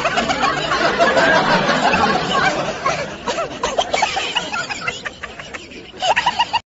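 People laughing and snickering, with bits of chatter mixed in, and a short louder burst of laughter just before it cuts off.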